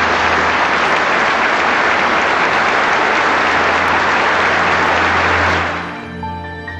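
Large audience applauding, a dense clapping that dies away about five and a half seconds in, leaving soft background music.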